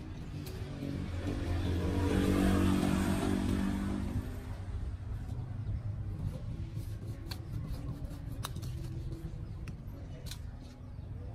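A motor vehicle's engine passing close by, swelling to a peak about two and a half seconds in and fading away over the next two seconds, leaving a low rumble with a few faint clicks.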